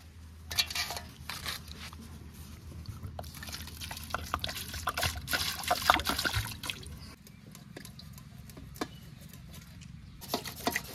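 Water poured from a large plastic water can over a whole fish in an aluminium basin, splashing and trickling, most strongly in the middle, then hands sloshing the water as the fish is washed.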